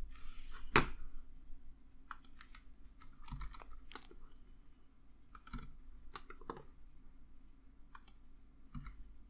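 Irregular, scattered clicks and taps from a computer mouse and keyboard during CAD work.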